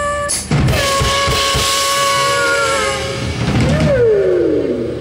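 Live band playing at a sound check: drum kit hits, then a long held pitched note that ends in a downward glide.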